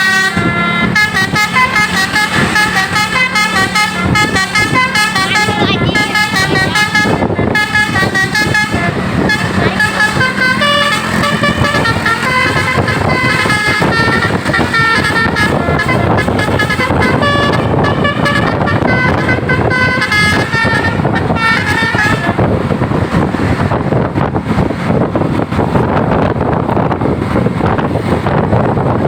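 An Indonesian basuri-style telolet bus horn playing a fast tune of many jumping notes. The tune stops about three-quarters of the way in, leaving a loud, steady noise with no tune.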